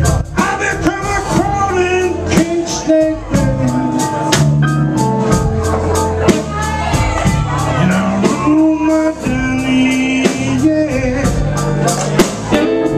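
Live blues band: a man singing into a microphone over electric guitars, bass, keyboard and a drum kit keeping a steady beat.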